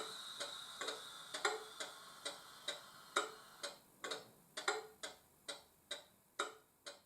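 Locomotive wheels clicking over rail joints, two or three clicks a second and often in close pairs, while the sound beneath them fades away.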